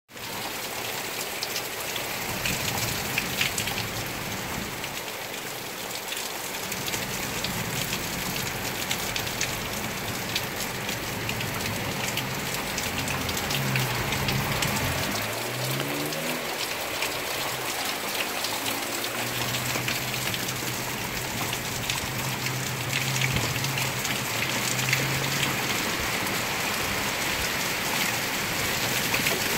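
Heavy rain falling steadily, with many individual drops splashing close by. A low hum joins about 13 seconds in, wavers up and down in pitch for a few seconds, and fades out about 26 seconds in.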